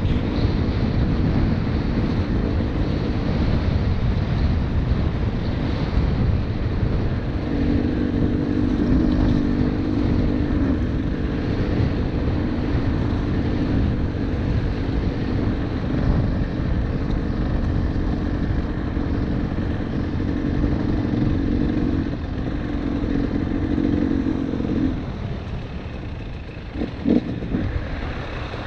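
KTM 300 two-stroke TPI dirt bike engine running on the trail, its pitch rising and falling with the throttle, over a heavy low rumble. The level drops off near the end, and there is a short sharp knock shortly before the end.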